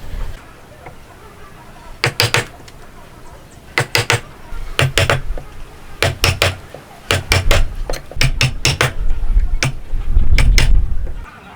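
Sharp knocks of a tool striking wood, in quick groups of two or three about a second apart, as in hand-cut joinery. A low rumbling stretch near the end.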